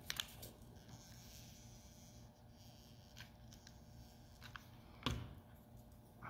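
Mostly quiet room tone with a few faint clicks and taps from hands working a hot glue gun and a small cardboard square. The loudest tap comes about five seconds in.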